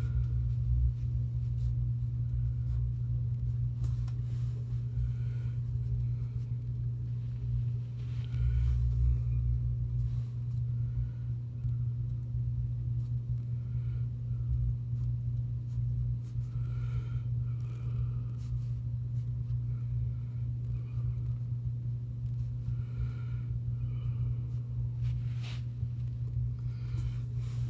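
A steady low hum with an uneven rumble beneath it, like a motor or appliance running.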